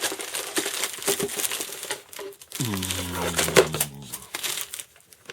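Plastic packaging crinkling and rustling while a new computer power supply and its cables are unpacked, with handling clicks throughout. About halfway through, a man gives a brief low hum, and the handling stops near the end.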